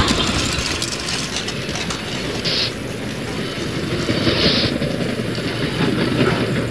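Train running along rails with a steady rumble, and two short hisses, about two and a half and four and a half seconds in.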